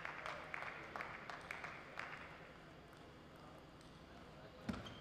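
Table tennis ball clicking sharply against table and bats, over a faint hiss in the hall that dies away about halfway. A dull thump, the loudest sound, comes near the end.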